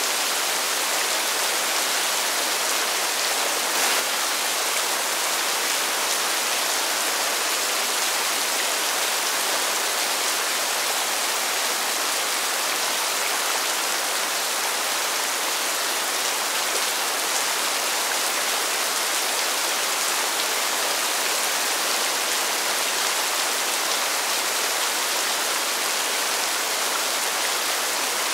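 Steady, constant rain falling on pavement: an even, dense hiss of drops, with one sharper tap about four seconds in.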